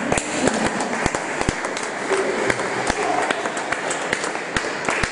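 A small group of people clapping their hands, the claps coming irregularly over a dense haze of sound.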